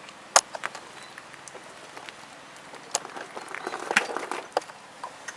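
Footsteps and handling knocks as the camera is carried a few steps closer: scattered sharp clicks, a strong one about half a second in, and a cluster of ticks and rustling after about three seconds.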